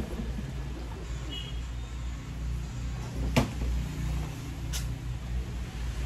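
A sharp knock about three and a half seconds in, and a fainter click just over a second later, over a steady low background hum.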